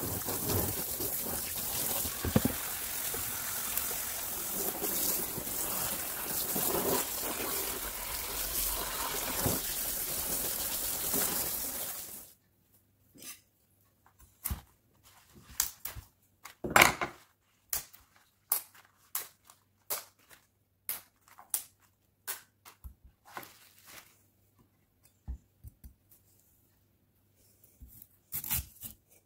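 Water running steadily, rinsing freshly pulled carrots and kohlrabi, stops abruptly about twelve seconds in. Then come scattered knocks and taps of vegetables and a knife set down on a wooden cutting board, and a knife cutting into a kohlrabi near the end.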